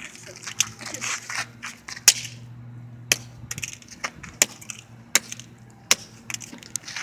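Broken microwave's plastic and metal parts cracking and clicking as they are handled and pried at. About a dozen sharp, irregular snaps, with rustling scraping during the first two seconds.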